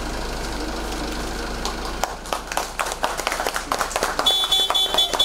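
Scattered hand clapping from onlookers begins about two seconds in, over a steady low hum. Near the end a rapid, high-pitched electronic beeping sounds in two short runs.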